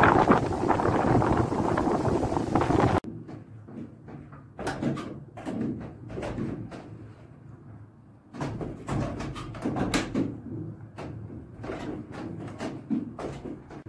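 Wind buffeting the microphone, cut off abruptly about three seconds in. Then the wooden cogwheels of a working windmill's drive turning, their wooden cogs meshing with irregular knocks and clatters.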